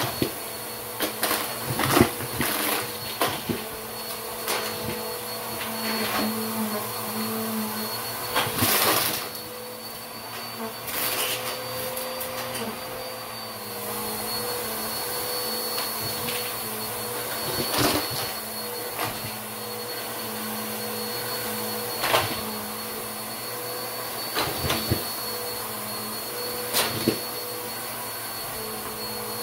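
Bissell upright vacuum cleaner running on carpet with a steady motor hum and a thin high whine, while plastic water bottle caps and fake coins are sucked up and clatter through it. The clattering comes as scattered sharp clicks and knocks, busiest in the first few seconds and again about nine to twelve seconds in, then in single hits.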